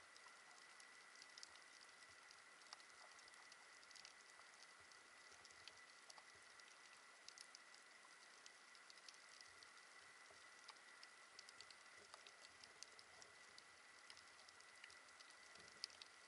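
Faint underwater crackle of a coral reef: a steady scatter of tiny sharp clicks, the snapping of shrimp, heard through an action camera's underwater housing, over a faint steady high tone.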